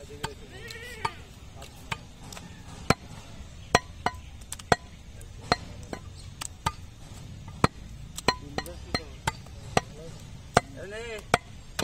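Large butcher's cleaver chopping beef brisket and fat on a round wooden stump block: sharp, irregular knocks, about two a second.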